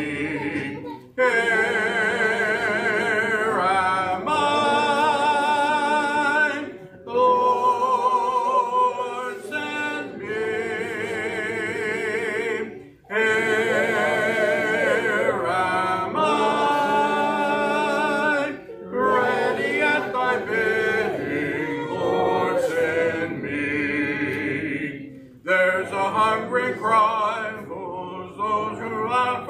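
A church congregation singing a hymn a cappella, led by a man's voice at the pulpit microphone, in sung phrases with short breaks between them about every six seconds.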